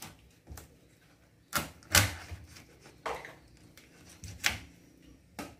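Knife cutting up pigeon meat on a plastic cutting board: several sharp knocks of the blade against the board at irregular intervals.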